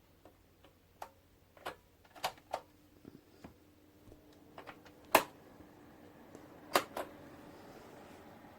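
A series of sharp clicks and taps, the two loudest about five and seven seconds in, over a faint steady hum whose tone steps higher just after the loud click near seven seconds.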